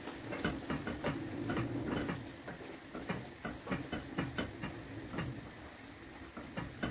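Wooden spoon stirring chicken livers in a hot non-stick frying pan: irregular knocks and scrapes of the spoon against the pan, about three a second, over a steady sizzle.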